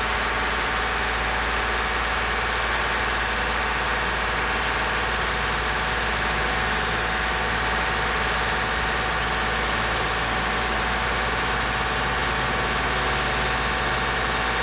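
Toyota 2GR-FE 3.5 L V6 engine running steadily while its cooling system is bled of air after a coolant drain and fill.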